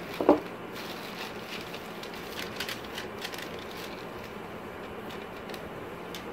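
Thin plastic shopping bag rustling and a paper receipt crinkling as hands pull it out, with the crinkling busiest in the first few seconds. A short, loud knock comes just after the start, over a steady background hiss.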